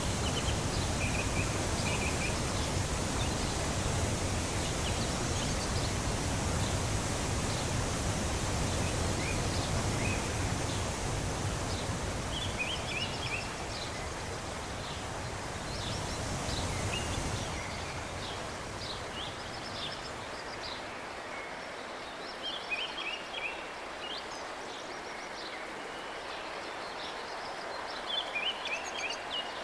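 Steady rush of river water over a riffle that fades out about two-thirds of the way through, leaving a quieter background. Small songbirds chirp in short repeated calls throughout, clearer once the water noise drops.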